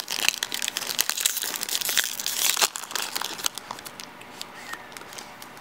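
Foil wrapper of a Topps Chrome baseball card pack being torn open and crinkled by hand: a dense run of sharp crackles that dies down near the end.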